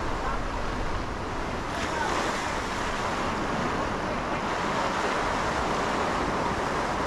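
Sea swell breaking against a rock ledge and washing back, a steady rush of surf.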